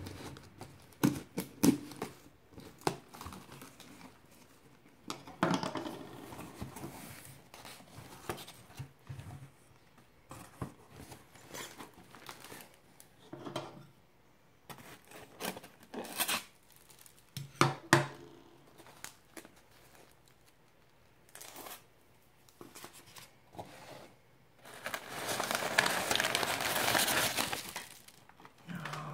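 Plastic shrink wrap being cut and torn off a cardboard shipping box, then cardboard flaps and a styrofoam liner being handled: crinkling, tearing and scattered sharp clicks and knocks, with a louder rustle lasting about three seconds near the end.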